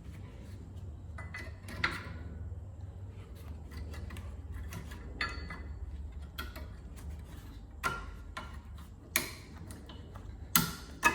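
Scattered metal clicks and knocks from hands and tools working on a car's rear disc brake caliper and pads, the two loudest knocks near the end, over a low steady hum.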